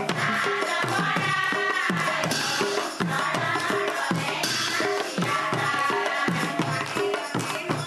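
Assamese devotional hymn singing (naam) with a fast, steady rhythm of hand-drum strokes and clashing cymbals.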